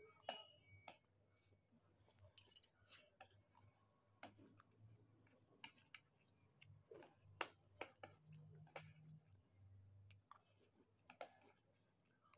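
Faint, scattered clicks and scrapes of a spoon and a fork against plates, with occasional chewing, as two people eat fast. A faint low hum runs underneath.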